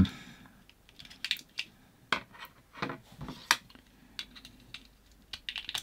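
Thin steel screwdriver shaft prying at the clip recess of a small plastic test-screwdriver case: a scatter of sharp plastic clicks and short scrapes, the loudest about three and a half seconds in, as the snap-fit back cover is levered loose.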